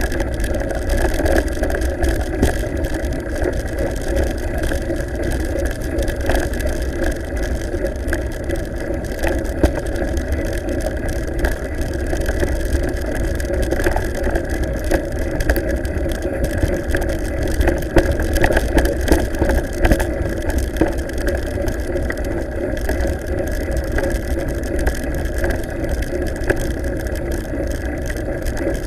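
Mountain bike rolling over a rough stony track: a steady rumble with many small rattling knocks, and wind on the microphone.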